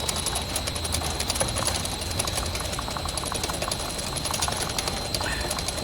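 Machinery running steadily in the background: rapid, even ticking over a low hum, with a faint steady high whine.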